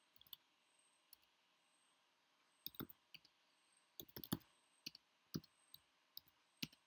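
Computer keyboard keys being typed, faint and uneven: single taps and short quick runs of clicks, the busiest run about four seconds in.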